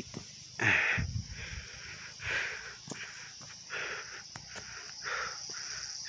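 A person breathing hard while walking, a breath about every second and a half, from a walker who says he is tired. A steady high chirring of forest insects runs underneath, with a few faint clicks.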